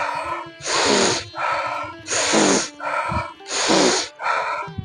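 A man doing forceful rhythmic breathing for a yoga breathing exercise: a sharp sniff in through the nose, then a breathy push out through the mouth. The pair repeats about every second and a half, three or four times.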